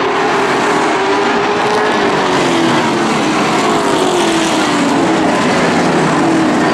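A pack of late model stock car V8 engines running hard around an oval. The engine notes overlap and rise and fall in pitch as the cars pass and lift and accelerate through the turns.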